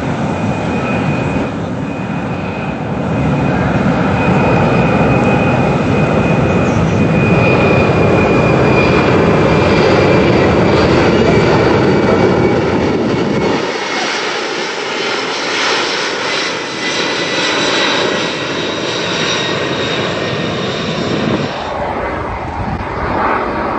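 Four turbofan engines of a C-17 Globemaster III jet transport passing low overhead: a loud steady rush with a high whine that slowly falls in pitch. About 14 s in the deep rumble drops away, leaving a thinner hiss, and near the end a fighter jet is heard.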